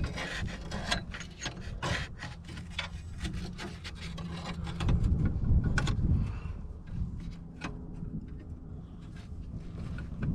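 Hard plastic and metal parts of an automatic horse waterer being handled, clicking and scraping in a quick irregular run, with a louder low rumble about five seconds in.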